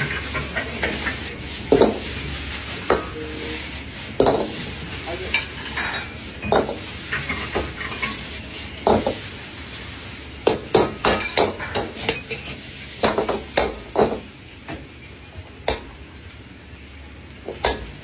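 Metal ladle knocking and scraping against a wok as egg fried rice is stir-fried, in irregular sharp clacks that come in a quick run a little past the middle, over a steady hiss of frying.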